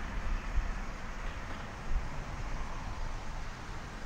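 Steady background noise: a low rumble under a faint hiss, with brief low bumps about half a second and two seconds in.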